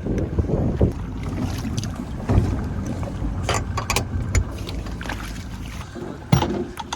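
Wind on the microphone and water around a small boat, a low rumble that fades, with a few sharp knocks and clunks; the loudest comes near the end.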